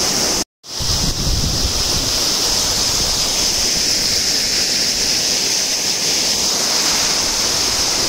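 Waterfall: a steady rush of falling water, broken by a split-second gap of silence about half a second in.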